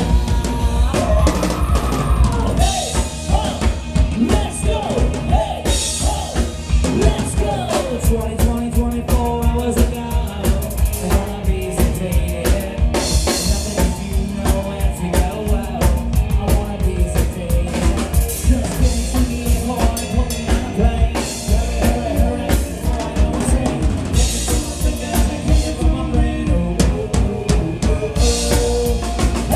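Live rock band playing loudly: a drum kit keeps a steady beat under electric guitar and bass, with a bending melodic line over the top in the first several seconds.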